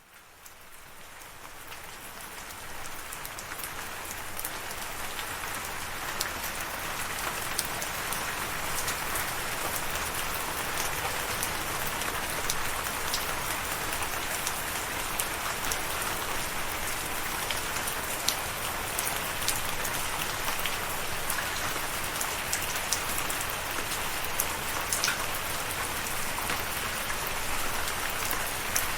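Steady rain falling, with frequent sharp drop ticks through the hiss. It fades in from silence over the first few seconds, then holds steady.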